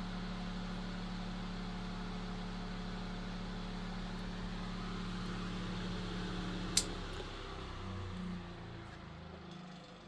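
Vintage Knapp Monarch Jack Frost 8-inch table fan running at its single high speed, a steady hum with some vibration from its out-of-balance stamped-steel blades. About seven seconds in there is a sharp click, and the hum then changes pitch and fades as the fan spins down.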